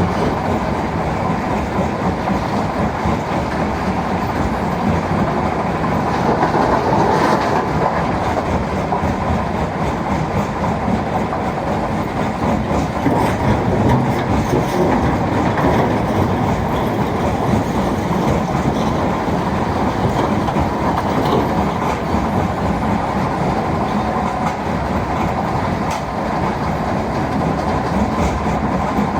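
A mobile stone crusher runs with a Volvo excavator working beside it: a steady, dense mechanical rattle and clatter over engine noise, with no clear pauses or single standout impacts.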